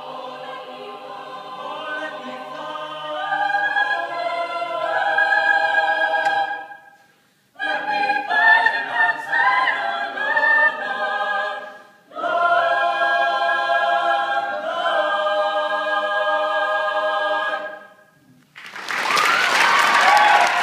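Chamber choir singing a cappella in sustained chords, in three phrases with short breaks, ending on a held chord. Audience applause breaks out right after the final chord, near the end.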